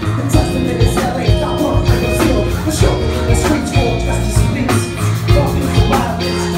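Live hip-hop band playing a steady beat on drum kit, bass guitar and DJ turntables, with a rapper's voice over the microphone.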